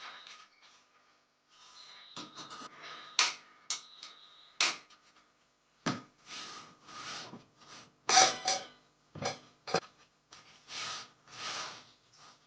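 Irregular knocks and half-second rubbing, swishing noises of hands handling household objects.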